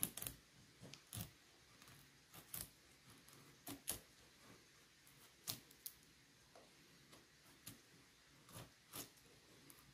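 Mora Garberg knife shaving curls down a dry stick to make a feather stick: a dozen or so faint, short scraping strokes at uneven intervals.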